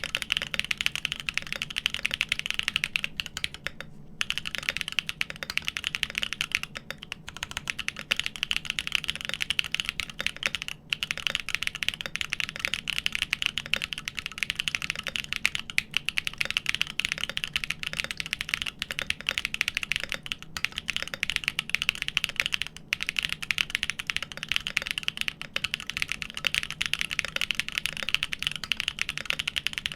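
Fast continuous typing on a GEON FROG TKL mechanical keyboard with Everglide Dark Jade Black linear switches on an aluminium plate, a dense stream of keystroke clacks with a few brief pauses.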